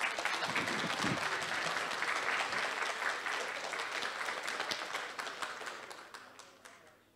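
Audience applauding, many hands clapping together, dying away over the last two seconds.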